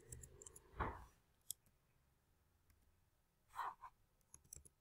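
Near silence with a few faint, scattered computer keyboard clicks, and soft breaths at about one second and three and a half seconds in.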